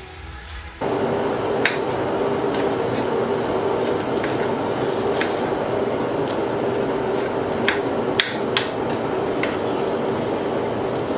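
Kitchen knife knocking on a wooden cutting board while an onion is diced: sharp single taps at irregular intervals, a few close together a little past the middle. Starting about a second in, a loud steady hum-like rushing noise runs under them.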